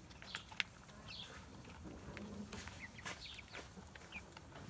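Young white chickens chirping and cheeping, short high calls scattered through, with a sharp click about half a second in.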